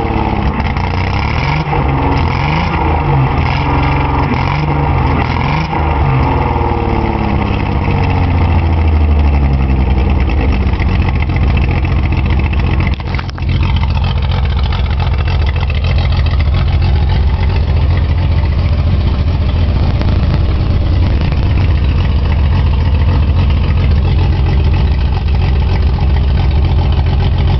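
Datsun 280Z's L28 fuel-injected straight-six running rough on a fuel injector stuck open. Its speed wavers during the first third, dips briefly, then it settles into a steady, low, uneven idle.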